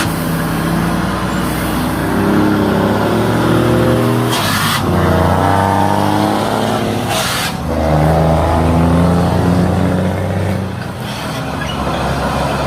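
Scania truck diesel engine running loud through its exhaust, pulling up in revs and stepping through the gears. Two short bursts of hiss, about four and a half and seven seconds in, each followed by a lower engine note, mark the gear changes.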